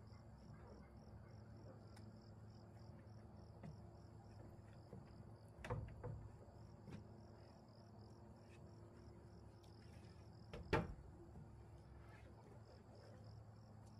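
Insects chirping in a steady, evenly pulsing high trill, faint, with two short knocks about six and eleven seconds in.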